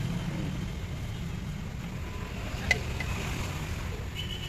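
Steady low background rumble, with one sharp metallic clink about two and a half seconds in as a long steel ladle knocks against the big aluminium biryani pot while chicken curry is spooned onto the rice.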